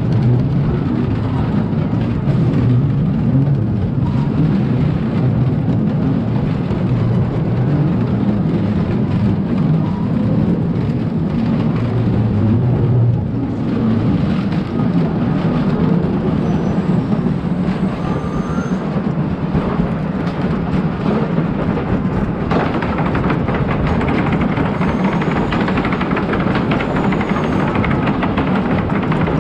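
Wooden side-friction roller coaster train rolling along its track: a steady low rumble and rattle of wheels on the rails. About two-thirds of the way through, a brighter hiss and clatter joins the rumble and carries on.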